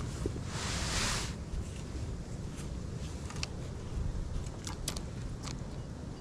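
Wind buffeting the camera microphone as a steady low rumble, with a brief rush of hiss about half a second in and a few light clicks later on.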